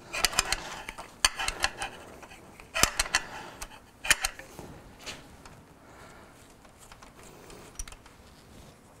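Metal hand tools and bolts clicking and clinking against each other as a motorcycle's shift linkage is unbolted with an Allen key. Several sharp clicks come in clusters in the first four seconds or so, then only faint scattered ticks.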